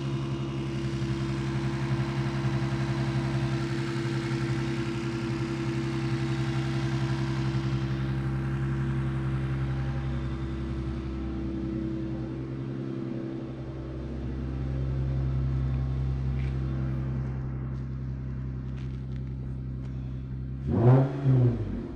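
Lexus IS 350's 3.5-litre V6 idling steadily on freshly installed spark plugs, then revved in two quick throttle blips near the end.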